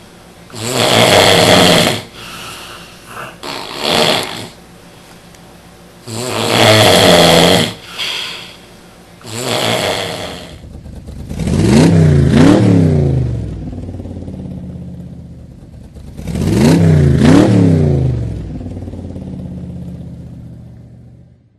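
A drunk person snoring very loudly: harsh, rasping snores every two or three seconds, then two long, drawn-out snores whose pitch dips and rises again.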